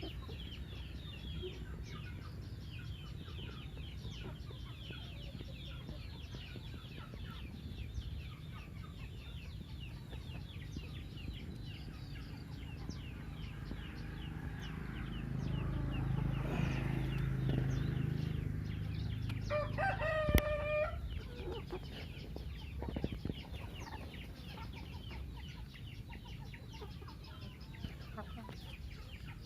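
Free-range chickens clucking and chirping, with a rooster crowing once about two-thirds of the way through. A low rumble swells in the middle.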